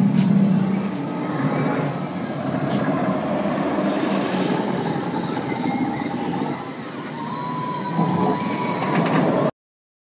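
Intimidator, a steel hyper coaster, with a train running along its track: a steady, loud rumble that cuts off suddenly near the end.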